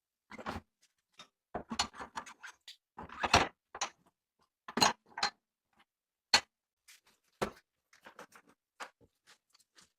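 Irregular clicks, taps and knocks of hard parts being handled and set down. The loudest knocks come in the middle of the stretch.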